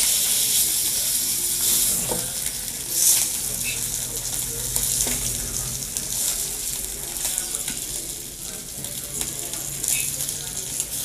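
Rava-coated catla fish pieces sizzling in oil on a hot black iron tawa, with a few scrapes and taps of a steel slotted spatula as the fried pieces are lifted off.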